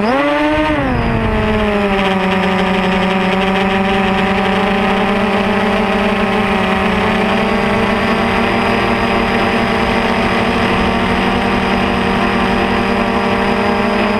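FPV quadcopter's electric motors and propellers whining. The pitch jumps up and falls back within the first second as the throttle is punched, then holds a steady hum.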